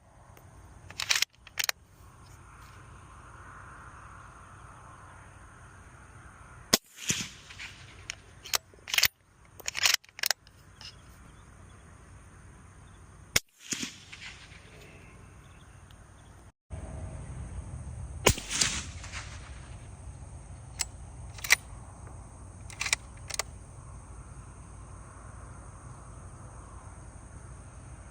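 Suppressed .308 rifle shots through a SilencerCo Omega 300: a handful of sharp reports, each with a short echo, separated by lighter mechanical clicks. A few seconds are spaced between shots, with a break in the middle.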